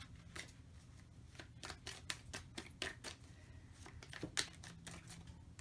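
A tarot deck being shuffled by hand: a run of faint, irregular card clicks and snaps.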